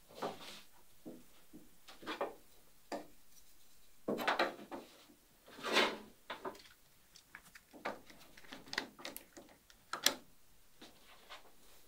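Thin wooden stringer being handled and worked against the plywood molds of a boat frame. Irregular scrapes and rubs of wood on wood, with light knocks and a sharp tap about ten seconds in.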